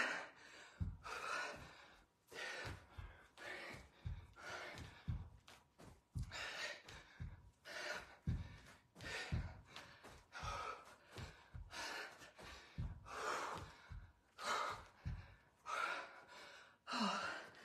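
A woman breathing hard, with a sharp gasping exhale on each rep, over soft thuds of her feet landing on a carpeted floor in a steady rhythm as she does jumping lunges.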